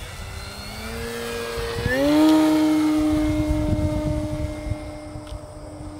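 Electric motor and propeller of an E-flite Carbon Z Cessna 150 radio-controlled model plane, a whine that rises sharply in pitch about two seconds in, as the throttle is opened for the climb, then holds steady.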